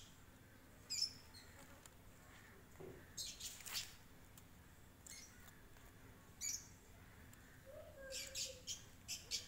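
Small birds chirping in short, high bursts every second or two, with a cluster of chirps near the end. A faint, thin kitten mew comes in near the end.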